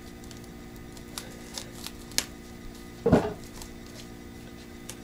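Crinkling and crackling of plastic wrapping being pulled off a wall calendar, as scattered short crackles, with one louder bump about three seconds in.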